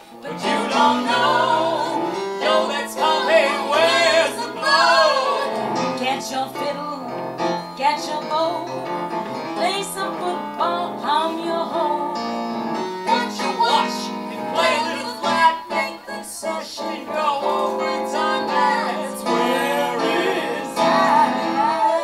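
Live song: singing over electric keyboard accompaniment, a woman's voice among the singers.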